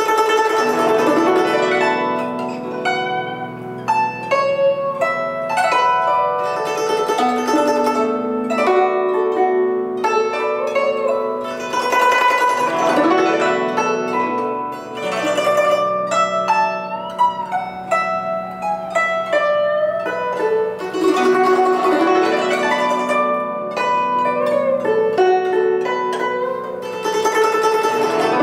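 Solo guzheng (Chinese zither) playing a slow plucked melody, notes ringing over each other, some bent in pitch by the left hand pressing the strings. Several bursts of rapid runs come and go through the passage.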